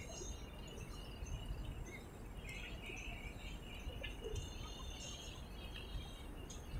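Faint outdoor ambience: a steady low rumble with scattered faint bird chirps, a few clustered about halfway through.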